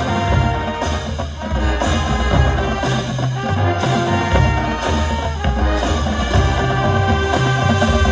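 High school marching band playing on the field: brass with a low bass line in held notes, driven by percussion hits about once a second.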